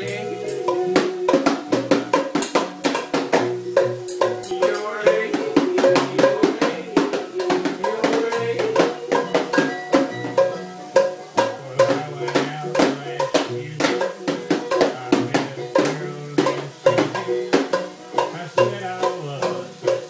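Music playing: a song with a melody over a busy percussive beat.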